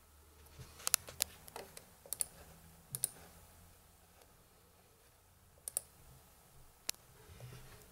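Sharp clicks of a Samsung Ativ Book 2 laptop's keys and touchpad being pressed while it is operated. About ten clicks come in small clusters, with a quick run of four about a second in.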